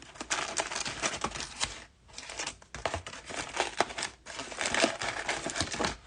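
Trading card pack wrappers crinkling and tearing as packs are handled and ripped open, in several bursts with short pauses between.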